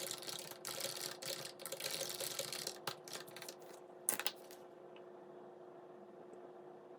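Typing on a Logitech MX Mechanical keyboard with red (linear) switches: a fast run of keystroke clicks that stops about two-thirds of the way through, leaving a faint steady hum.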